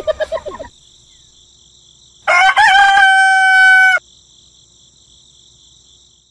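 A rooster crows once: a single loud call, rising at the start and then held for about a second and a half, beginning about two seconds in. It sits over a steady high-pitched whine in the background.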